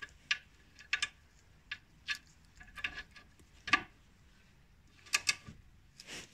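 Irregular metallic clicks and clinks, some with a short ring, as a socket and torque-wrench ratchet are fitted to and turned on bolts on a car's lower suspension arm.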